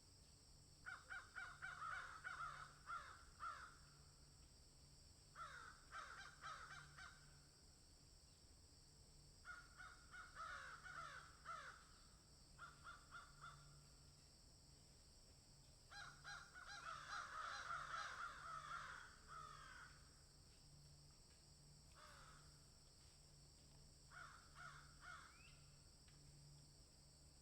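Birds giving harsh, rapidly repeated calls in about seven bouts of one to four seconds each, the longest about two-thirds of the way through. A steady high hiss runs underneath.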